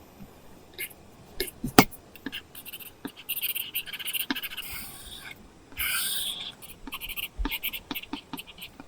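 Apple Pencil nib drawing on an iPad screen covered with a paper-texture film: irregular short scratchy strokes, with sharp taps of the pencil tip, the loudest about two seconds in.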